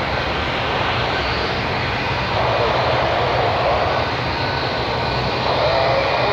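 Airbus A330-300 airliner's Rolls-Royce Trent 700 jet engines, a steady loud rumble of the arriving jet that swells a little about two seconds in.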